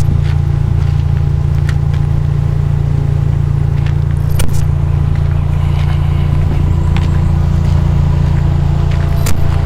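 Subaru WRX's 2.0-litre turbocharged boxer four-cylinder engine and exhaust running at a steady, unchanging engine speed without revving. Two short sharp clicks sound, about four and a half seconds in and near the end.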